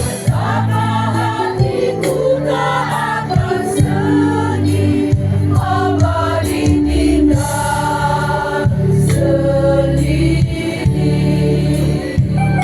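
A community choir singing a song in chorus over a musical backing that holds long, steady low notes.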